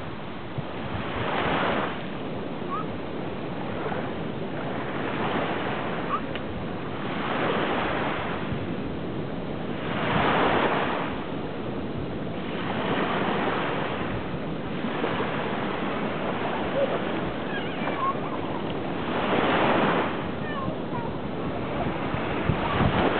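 Small waves washing up onto a sandy beach, the surf noise swelling and falling away every few seconds.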